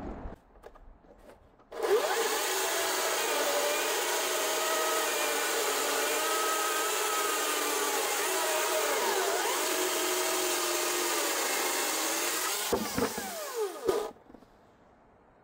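Greenworks Commercial OCS800 cordless electric chainsaw, running .404 chain on a 36-inch bar, starting up about two seconds in and cutting steadily through a large log under heavy load, its motor whine wavering slightly. About a second before it stops, its pitch sweeps up and down, then it cuts off.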